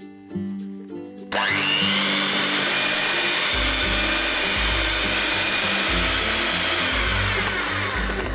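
Electric hand mixer switched on about a second in, its motor whining up to speed and then running steadily as the beaters whip cream with powdered sugar. Background music plays before it starts and goes on underneath.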